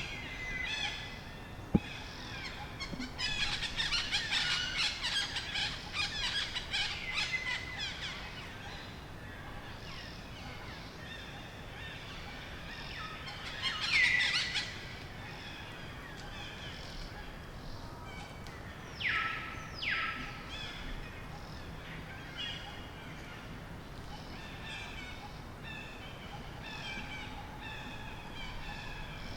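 Birds chirping and calling, many overlapping short notes, busiest in the first third. A louder falling call comes about halfway through, and two sharp calls follow a few seconds later.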